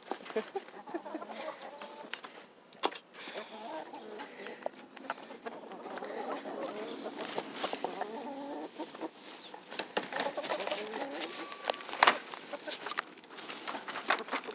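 Several hens clucking, with scattered clicks and knocks and one sharp knock about twelve seconds in.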